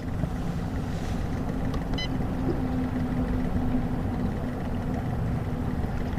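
Boat's outboard motor running steadily, a low even drone. A brief faint high beep sounds about two seconds in.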